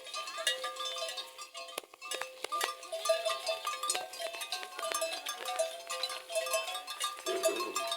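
Many livestock bells on a moving flock clanking and ringing irregularly, strikes overlapping at a few fixed pitches.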